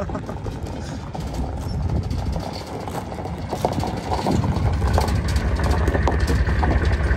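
Flatbed tow truck's engine running close by, getting louder about halfway through, with gravel crunching.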